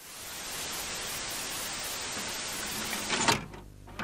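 Static hiss sound effect in a channel intro: an even hiss fades in and holds steady for about three seconds, ends in a brief louder glitch, then drops to a quiet low hum with a click near the end.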